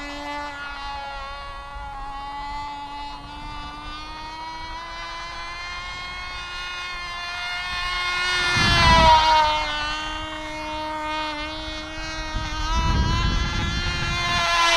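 Cox RR1 .049 rear rotary induction glow engine of a small RC model plane in flight, a high buzz that wavers in pitch and loudness as the plane circles. It swells about nine seconds in and again near the end, its pitch dropping as the plane passes. The engine is running a little rich.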